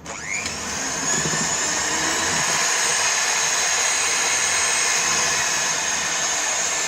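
Electric mixer starting up with a quick rising whine, then running at a steady speed as it beats cake batter.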